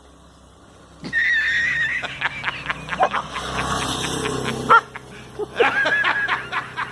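A dog whining in a high, wavering tone, starting about a second in, mixed with short clicks and a sharp yelp near the middle.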